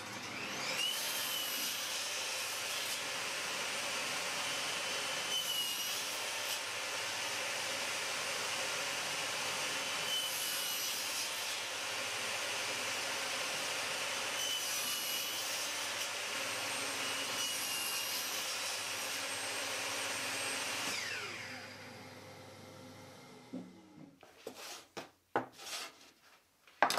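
Table saw starts up and runs with a steady whine while a plywood piece is pushed over the partly raised blade in several passes, cutting notches. About 21 seconds in it is switched off and its pitch falls as the blade winds down, followed by a few wooden knocks.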